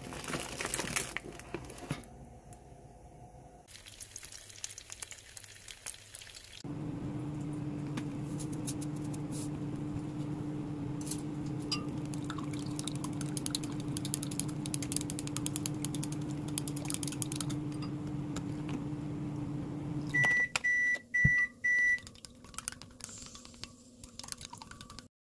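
Plastic food packaging crinkles, then wooden chopsticks tap and scrape in a glass bowl while whisking eggs. A steady hum, most likely a microwave oven running, goes for about fourteen seconds, stops, and is followed by three short high beeps.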